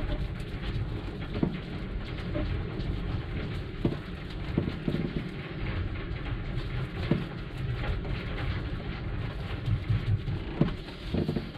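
Gloved hands pressing and rubbing fibreglass cloth down into resin, giving soft irregular knocks and rubbing over a steady hiss.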